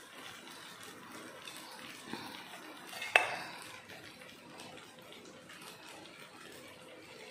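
Fried chicken pieces tipped from a steel bowl into a pan of cooked vermicelli, with faint soft handling noise, a small tick about two seconds in and one sharp metallic clink with a short ring about three seconds in, as the steel bowl knocks against the cookware.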